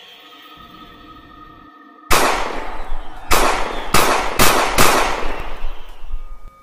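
Five loud, heavy blows, the first about two seconds in and the rest coming faster and closer together, each trailing off in a ringing echo: a club-like weapon striking. A faint low drone sits under the opening seconds.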